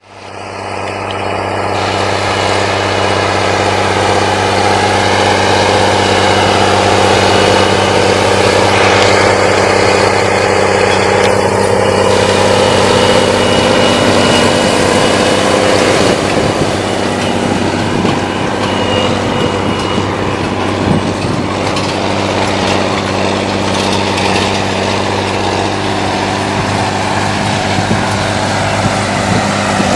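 Rába 245 articulated tractor's six-cylinder diesel engine running steadily under load while pulling a seedbed cultivator. The sound fades in over the first couple of seconds and grows a little quieter past the middle as the tractor moves away.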